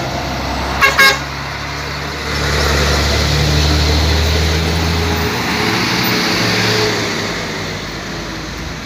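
A vehicle horn gives two quick toots about a second in. Then a heavy truck's engine runs as it passes, with road noise that swells in the middle and eases off toward the end.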